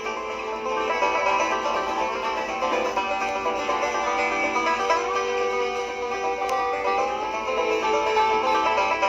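Background music: an upbeat bluegrass-style tune with banjo and plucked strings.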